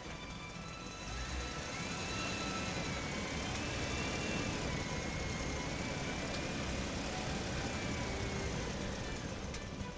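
WPL B24 RC truck's small electric motor and gears whining as it drives, the pitch wavering slightly up and down with speed; it gets louder about a second in.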